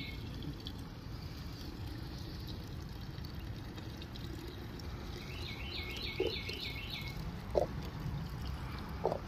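Gasoline pouring from a fuel can into a STIHL MS 251 chainsaw's fuel tank, a low steady pour. About halfway through a bird sings a quick run of about seven repeated notes, and there are three light knocks in the second half.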